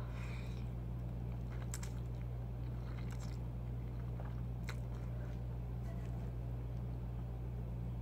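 Wet chewing and mouth clicks of someone eating shrimp alfredo pasta, with sharp clicks a little under two, about three and nearly five seconds in, over a steady low hum.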